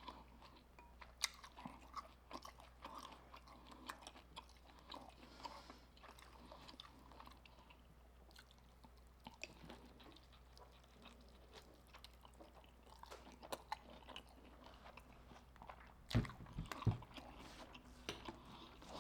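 Close-up chewing and crunching of fried seafood, a run of soft wet clicks and crunches. A couple of low thumps come about three seconds before the end.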